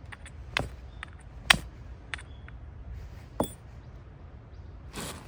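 A run of sharp knocks and light clinks, as of hard objects being handled and set down: five louder knocks a second or so apart among fainter clicks, some leaving a short high metallic ring.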